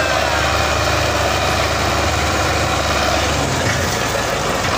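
Belarus MTZ 510 tractor's diesel engine running steadily under load as it pulls a loaded sugarcane trolley, its low note changing about three and a half seconds in.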